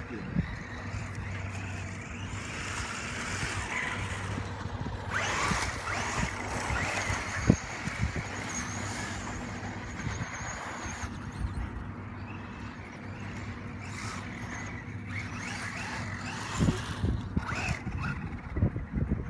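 Radio-controlled trucks driving on gravel: the small electric motors and gears whine and the tyres rustle over the loose surface. A few sharp knocks stand out, the loudest about seven and a half seconds in, with several more near the end.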